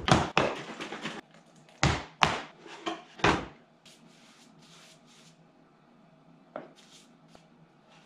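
A wooden case and a loose wooden frame being handled and set down on a plywood workbench: a few hollow wooden knocks in the first few seconds, then faint light rubbing and a small tap.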